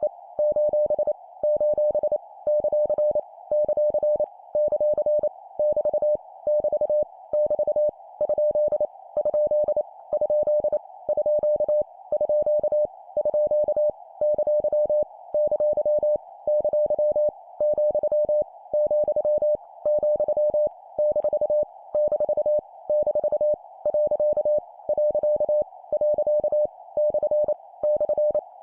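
Morse code (CW) sent at 25 words per minute: a steady tone of about 600 Hz keyed on and off in dots and dashes, sending punctuation characters each repeated three times. A steady hiss runs underneath and fills the gaps between elements.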